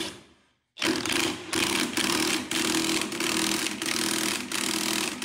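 DeWalt cordless impact wrench hammering on the forcing screw of a gear puller, starting about a second in and running in long runs broken by short pauses. The puller is trying to draw a hub that is stuck tight off its shaft.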